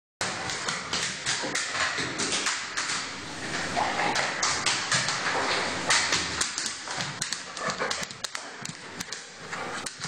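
A dog's claws clicking and tapping in a quick, irregular run of clicks over a steady hiss. It fades away near the end.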